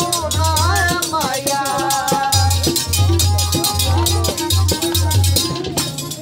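Live Punjabi folk music: a man's sung line over harmonium and tabla, with the metal jingles of a chimta (long tongs) clashing in a steady rhythm. The voice stops about a second and a half in while the harmonium holds steady notes and the drums and chimta play on.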